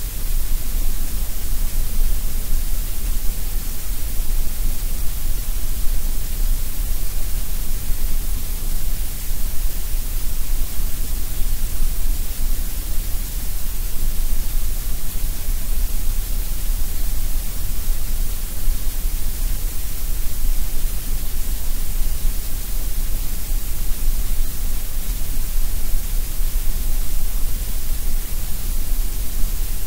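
Steady generated grey noise: an unchanging hiss with a deep rumble underneath and a thinner middle.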